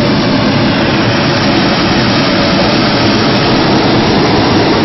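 Hot air balloon's propane burner firing in one long, steady blast close by.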